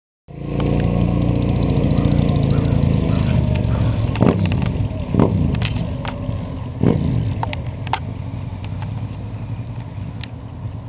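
Suzuki SV650N V-twin through a Leo Vince slip-on exhaust, accelerating away: loud at first, then fading steadily as it pulls off. Three sharp throttle blips in the middle mark its gear changes.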